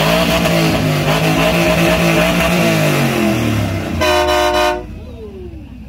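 Old red truck's engine revved hard, held high for about three seconds, then dropping off. A horn blasts briefly about four seconds in, followed by a falling pitch as the revs die away.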